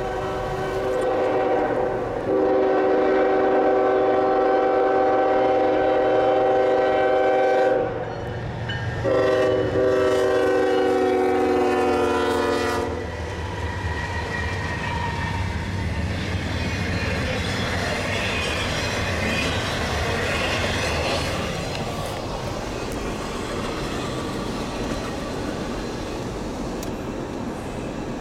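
Norfolk Southern diesel freight locomotive sounding its horn chord for a grade crossing: one long blast, a short break about 8 seconds in, then a second long blast that ends about 13 seconds in. After that comes the locomotive's low engine rumble and the steady rolling clatter of intermodal freight cars on the rails.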